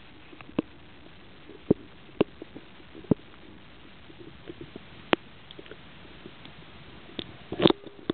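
Muffled underwater audio picked up by a waterproof compact camera held in lake water: a low steady hiss broken by about half a dozen sharp clicks and knocks at irregular intervals, with a louder cluster of knocks near the end, the handling noise of the camera among the weeds.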